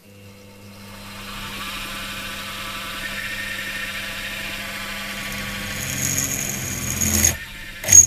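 A small benchtop milling machine's motor spins up and runs at high speed while a 9 mm twist drill bores into a copper tube. A high-pitched scream from the drill comes in about six seconds in. The motor cuts out just after seven seconds, and a sharp knock follows near the end.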